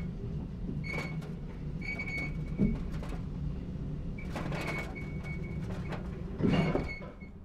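Cartoon sound effect of a small cage lift going down: a steady low mechanical hum with short squeaks recurring about once a second, a louder clunk about six and a half seconds in, then fading out.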